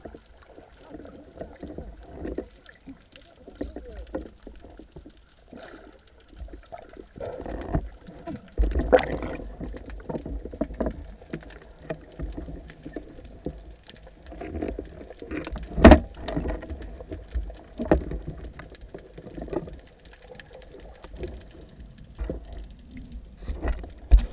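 Underwater noise heard through a camera's waterproof housing: a low, muffled rumble of moving water with irregular knocks and clicks, the sharpest about 16 seconds in.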